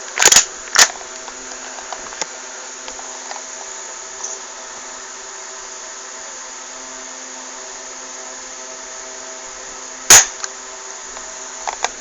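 Airsoft M1911-style pistol: two sharp snaps about half a second apart near the start, then a single louder snap about ten seconds in as it fires a BB, over a faint steady hum.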